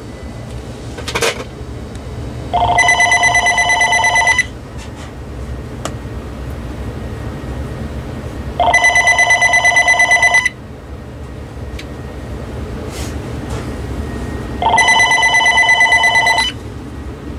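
VTech CS6124 DECT 6.0 cordless phone ringing for an incoming call: three electronic rings with a fast warble, each about two seconds long and about six seconds apart.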